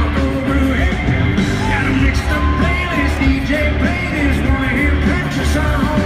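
Live country-rock band playing loudly in an arena, a steady pounding bass beat under singing.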